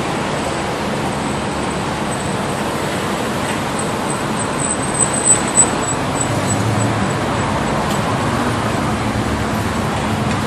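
Road traffic on a town street: cars and a pickup truck driving past, a steady rush of engines and tyres. Three brief louder blips come close together about five seconds in.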